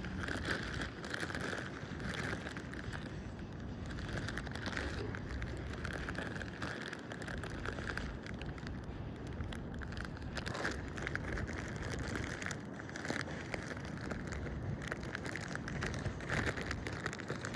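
Rustling and crackling of dry leaves and bits of wood being sorted through by hand, over a low rumble of wind on the microphone.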